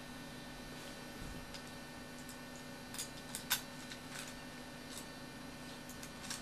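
Faint scattered clicks of a T-handle hex driver and small screws as a metal motor mount is bolted onto a helicopter frame, over a steady low hum.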